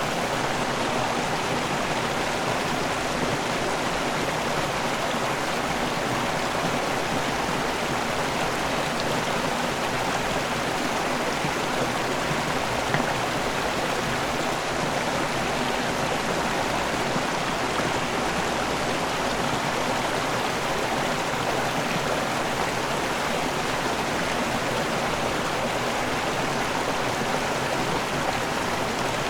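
River water pouring over a waterfall and rushing on downstream, a steady unbroken rush.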